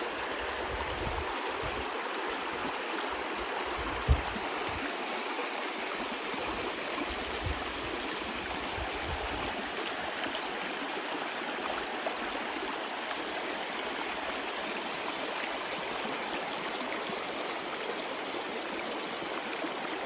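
Shallow river water rushing steadily over rocks, pebbles and stones at low flow. A few low thumps come in the first half, with one sharp knock about four seconds in.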